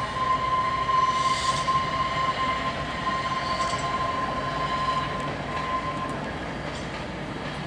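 Manx Electric Railway electric tram car and trailer running past on the track, with a steady high whine that stops about six seconds in while the running noise slowly dies away as the tram moves off.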